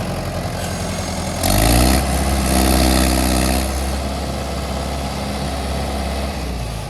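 Heavy diesel engine of earthmoving machinery running steadily. About a second and a half in it revs up, its pitch rising and staying higher for about two seconds, then settles back to a steady run.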